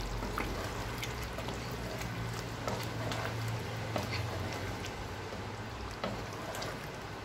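Wooden spatula stirring thick chicken curry in a nonstick pot: wet stirring sounds with scattered light clicks and scrapes, over a steady low hum.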